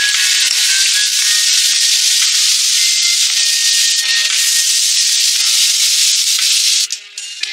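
Sauce, scallion and ginger frying in hot oil in a wok, a loud steady sizzle. Near the end the sizzle drops away sharply as water is poured into the pan.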